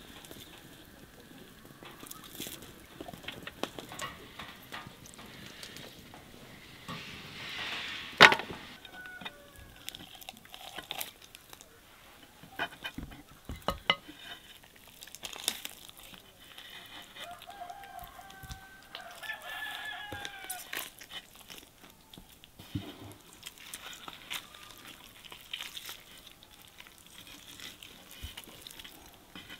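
A rooster crowing, with short clucks from chickens, among scattered light clicks and knocks; a sharp knock about a quarter of the way in is the loudest sound.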